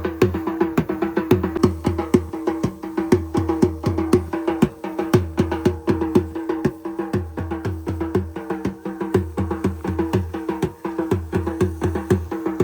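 Music: fast, rhythmic drumming with sharp strikes and low thumps over a steady held tone.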